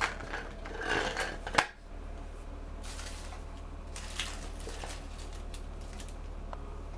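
Plastic parts of a turtle basking platform clicking and knocking together as they are handled, with one sharp knock about one and a half seconds in. After that there is only a steady low hum and an occasional faint click.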